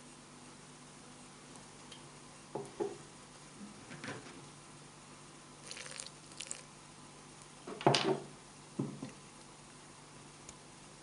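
Several short, scattered clicks and knocks over a faint steady hum, the loudest about eight seconds in.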